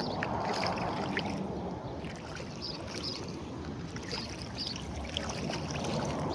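Shallow floodwater sloshing and splashing as it is stirred into waves, with many small splashes.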